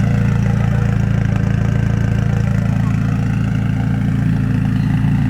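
McLaren 570S's twin-turbo V8 idling steadily.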